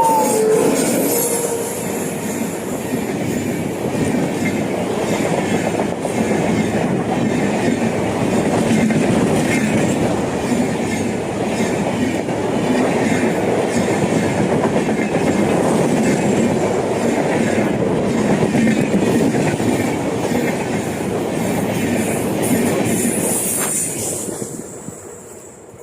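A passenger train running past at speed: a WAP7 electric locomotive hauling LHB coaches, with a steady rumble and clatter of wheels on rail that fades away near the end.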